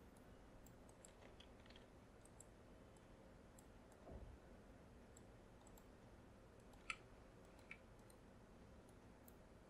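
Near silence with faint, scattered clicks of a computer mouse and keyboard. One click about seven seconds in is a little louder, and there is a soft low bump at about four seconds.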